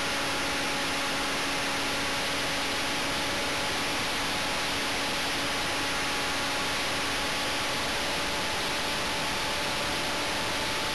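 Steady rush of air and hiss at the onboard camera's microphone on a flying RC plane, under a faint, even electric motor and propeller whine.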